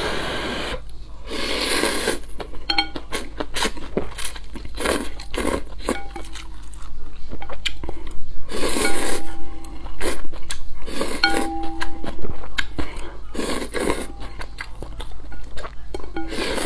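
Close-up eating sounds: instant ramen noodles slurped in repeated bursts of about a second each and chewed, with chopsticks and a wooden spoon clicking against a glass bowl.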